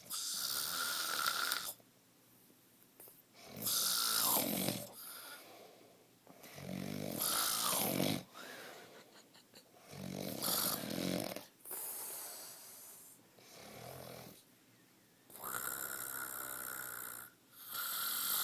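A man snoring in his sleep: a loud rasping snore about every two to three seconds, some of them sliding down in pitch.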